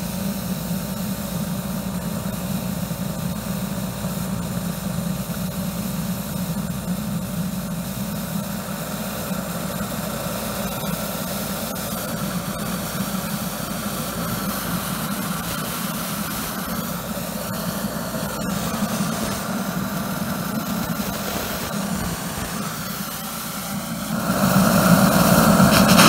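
Steam boiler running: a steady machine noise of its burner and pump, with the hiss of a steam jet blowing from its brass nozzle. It gets louder near the end.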